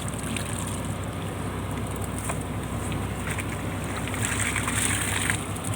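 Purse seine fishing boat's engine running with a steady low hum under a wash of noise, with a few faint knocks.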